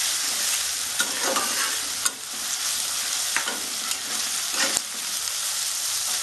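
Sliced onions sizzling as they fry in a little oil in a pan, stirred and turned with a spatula that scrapes against the pan and knocks it with a few sharp clicks.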